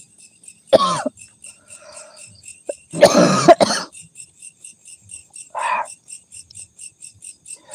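A person coughing and clearing their throat in three bursts, about a second in, around three seconds in (the longest), and just before six seconds. Under them, night insects chirp in a fast, even pulse of about five a second.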